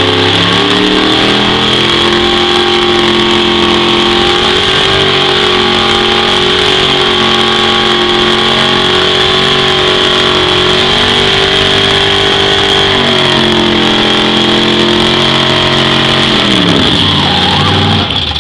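Holden WB ute's 355 cubic-inch V8 held at high revs in a burnout, its rear tyres spinning and squealing on concrete. Near the end the revs fall sharply away toward idle.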